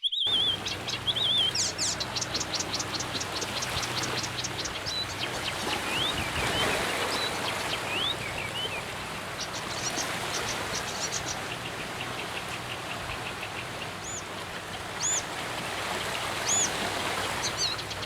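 Wild songbirds singing over a steady background hiss: a fast dry trill, then short rising and falling whistles, then high arched notes repeated about every second and a half near the end.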